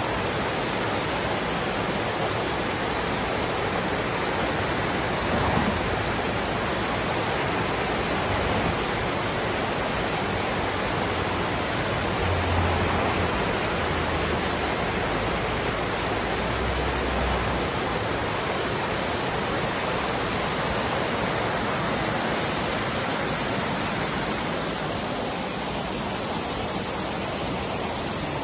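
Steady rush of a small mountain stream cascading over granite ledges, a little softer near the end.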